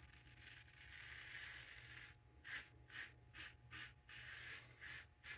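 Faint scraping of a plastic Dorco double-edge safety razor with a Bolzano blade cutting through lathered stubble. One longer stroke comes first, then quick short strokes at about two a second.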